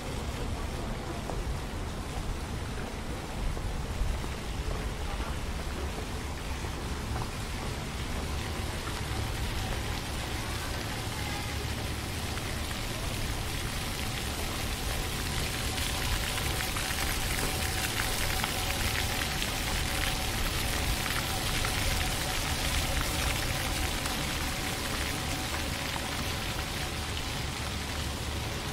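Steady hiss of splashing water that grows louder from about halfway through, over a low rumble.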